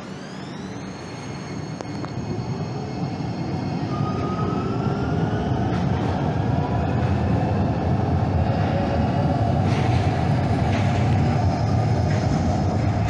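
Calgary Transit CTrain light-rail train pulling away and gathering speed, its electric drive whining upward in pitch while the running rumble grows louder over the first few seconds, then steadies.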